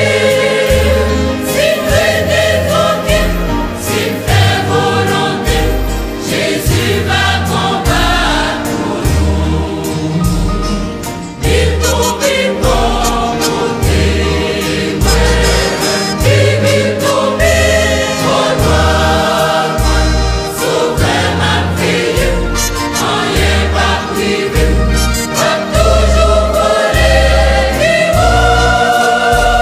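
Gospel choir singing a Haitian Creole hymn with band accompaniment. A steady pulsing bass line and a regular beat run underneath.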